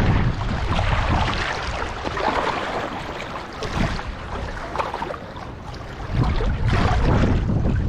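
Strong wind gusting across the microphone with a low rumble, easing a little past the middle and picking up again about six seconds in, over river waves lapping against the bank.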